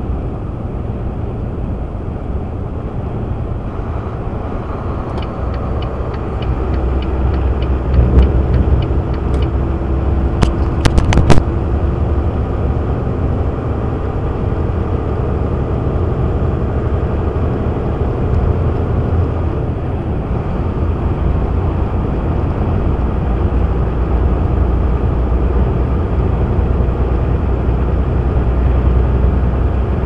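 Steady low rumble of engine, tyre and wind noise inside a truck cab at highway speed, growing louder about six seconds in. A quick run of sharp clicks comes about ten to eleven seconds in.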